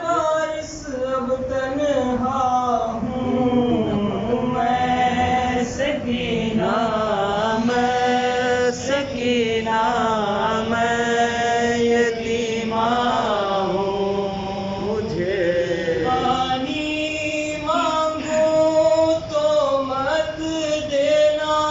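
A solo male voice chanting a nauha, a Shia lamentation elegy, unaccompanied, in long held and wavering melodic lines with brief pauses for breath.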